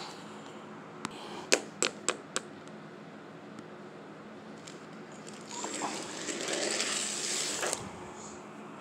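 Plastic toy figures handled on a wooden floor: a few sharp clicks as they are set down, then about two seconds of rasping, scraping noise before it stops.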